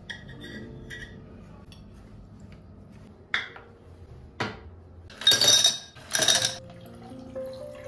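Ice cubes tipped from a plastic scoop into a glass tumbler, clattering against the glass in two bursts. Before that come two short knocks as the empty glass is set down on a wooden coaster.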